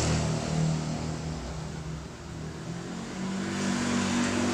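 A motor vehicle engine running steadily. It eases off around two seconds in and picks up again about three seconds in.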